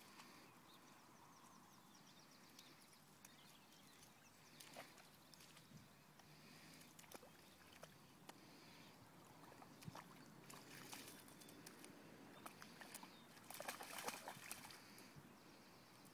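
Faint splashing and sloshing of water as a springer spaniel puppy paws and wades in a shallow puddle after a ball, in scattered small splashes with a louder flurry near the end.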